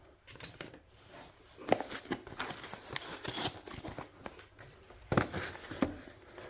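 Irregular clicks, scrapes and rustles of small parts and wires being handled on a workbench, with a few sharper knocks near the middle and about five seconds in.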